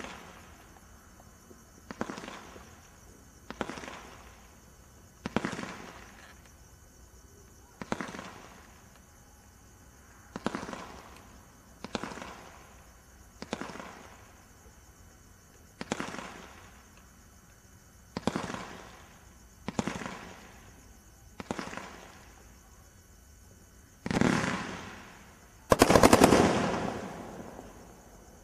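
Brothers 'Swim' 16-shot Roman candle firing its stars one at a time, a shot about every one and a half to two and a half seconds. Each shot is a sharp pop with a fading hiss behind it. The last two, near the end, are the loudest.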